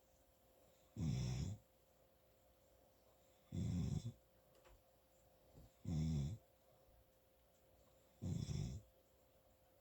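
A sleeping person snoring loudly and rhythmically: four low, rattling snores about two and a half seconds apart, each lasting about half a second.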